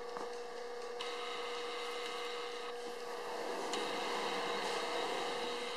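Blue masking tape being peeled slowly off wet body filler along a taped body line, a drawn-out ripping rasp that grows louder past the middle, over a steady hum. The tape is pulled while the filler is still wet so that it leaves a clean line.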